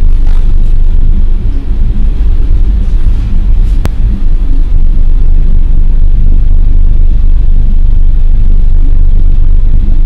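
Storm wind buffeting the microphone on a ship in heavy seas: a loud, constant low rumble, with one brief click just before the middle.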